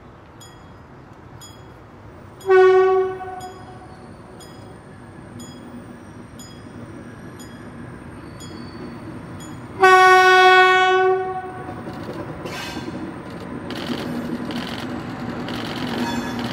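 Horn of a DR class 112 (V 100) diesel locomotive sounding a short blast, then a longer one of about a second and a half, as the train approaches the level crossing. Its diesel engine grows steadily louder toward the end. A faint regular ticking, about two a second, runs through the first half.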